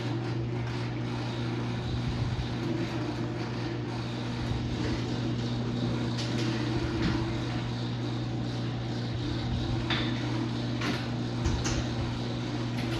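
Linear garage door opener running as it lowers the door: a steady motor hum with faint scattered clicks, cutting off near the end as the door finishes closing.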